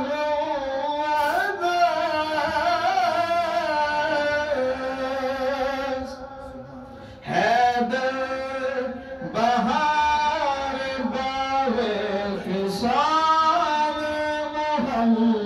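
A man's voice amplified through a handheld microphone, singing a naat (Islamic devotional poem) in long, ornamented held notes that slide between pitches. There is a short break in the line about six seconds in.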